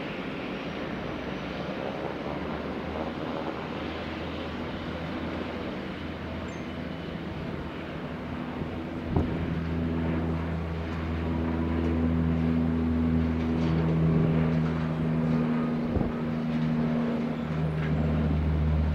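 Airliner jet engines running, a broad steady roar. About nine seconds in, a steady low hum joins it and grows louder, and there are two sharp clicks.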